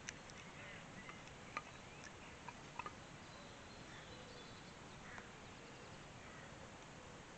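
Small kindling fire of split wood sticks crackling, with a few sharp pops, the loudest about a second and a half in and near three seconds. Faint bird calls sound over quiet outdoor background.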